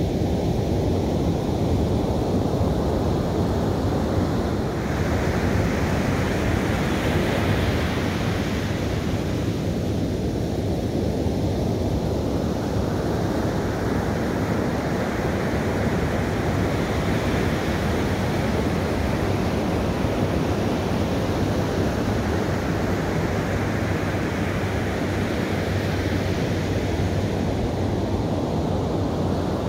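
Ocean surf breaking and washing up a sandy beach: a steady rumble of surf, with the hiss of breaking waves swelling and fading three times, about five, twelve and twenty-one seconds in.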